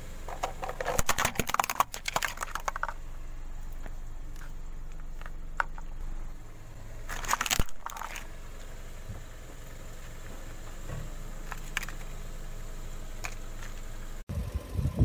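Car tyre rolling over a plastic toy water truck, the plastic crackling and crunching as it cracks and breaks apart. The crunching comes in two bursts: a long crackling one in the first few seconds, and a shorter, sharper one about seven seconds in.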